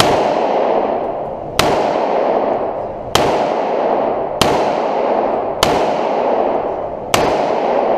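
Revolver shots fired one at a time, six in all, about a second and a half apart. Each shot rings on in a long echo off the walls of an indoor range.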